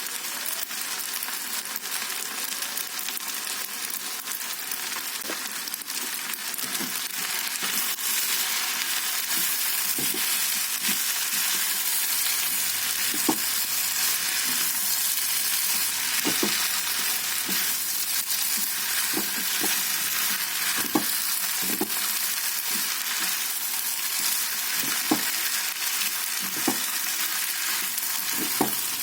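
Kwetiau goreng (fried flat rice noodles) being stir-fried in a hot pan: a steady sizzle, with short knocks now and then as it is stirred.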